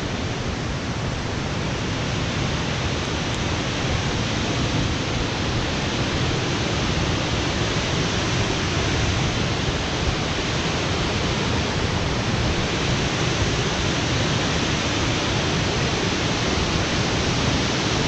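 Steady rushing roar of a large waterfall, growing slightly louder toward the end.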